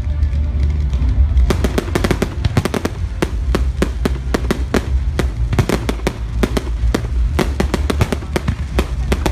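Fireworks going off: a continuous deep booming rumble, with a dense run of rapid crackling bangs from about a second and a half in. Music plays underneath.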